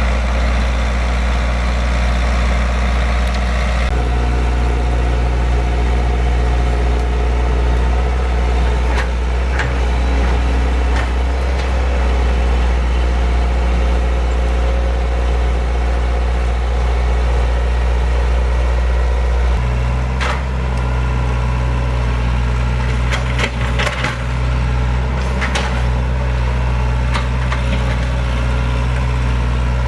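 Heavy excavator diesel engine running steadily, its note shifting about four seconds in and again about two-thirds of the way through as the load changes. Several sharp knocks over the last third.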